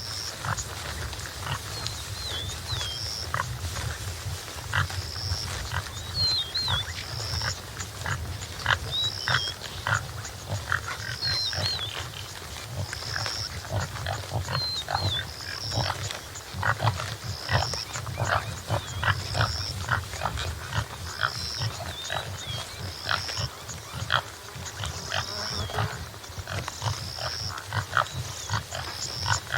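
Topi antelope calling in a long series of short, low calls over a continuous low rumble. A high chirp repeats about once a second, with a few higher whistled notes between.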